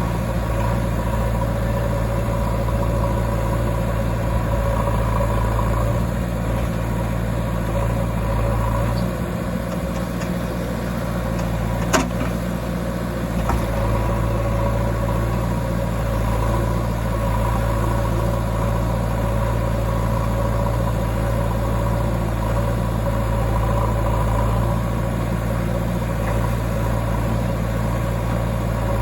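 Heavy diesel engine of a backhoe loader or farm tractor running steadily at low speed, with one sharp knock about twelve seconds in.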